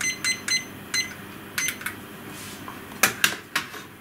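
Digital kitchen timer beeping in short, quick beeps, about four a second, as its buttons are pressed to set it, stopping about a second in. A few light clicks follow, then several sharper knocks near the end as the timer is set down on a shelf.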